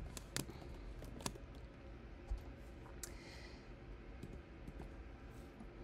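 Faint computer keyboard typing: a few separate keystrokes clicking at an uneven pace.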